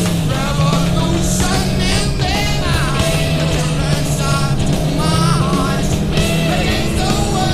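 Loud rock music with a male vocal singing over distorted guitars and a steady beat.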